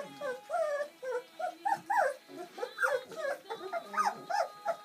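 Bernese Mountain Dog puppies, a few weeks old, whimpering and squeaking: many short, overlapping cries that rise and fall in pitch, one after another.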